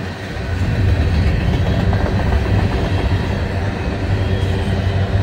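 BNSF freight train's cars rolling past close by over a short bridge: a steady rumble and rattle of steel wheels on the rails.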